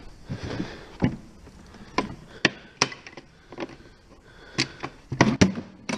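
A series of sharp, irregular knocks and taps, about nine of them spread unevenly over several seconds, with a faint hiss between them.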